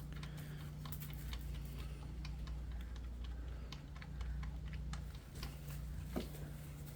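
Ratchet clicking in short irregular runs as the 10 mm coil-pack hold-down bolts are snugged down, over a steady low hum.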